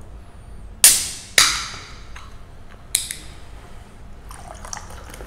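Aluminium Pepsi can opened by its ring-pull: two sharp cracks, about a second in and half a second later, each trailing off in a short hiss of escaping gas, then a lighter click near three seconds. Near the end the cola starts to pour and fizz into the glass.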